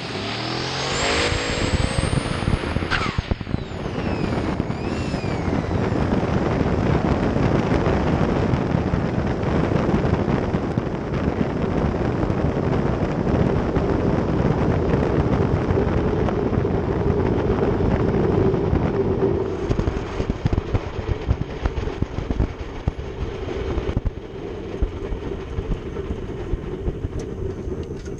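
Turbocharged engine of a drag-racing S10 pickup heard from inside the cab under hard acceleration: a rising turbo whistle in the first few seconds, then a long loud run with a steady hum that eases off after about twenty seconds. This is the pass in which the truck's ring and pinion let go with "a bunch of noise."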